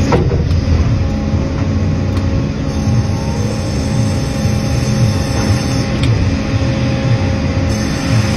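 Sawmill machinery running: a Cleereman headrig band saw and chain conveyors making a loud, steady mechanical noise with a constant hum running through it.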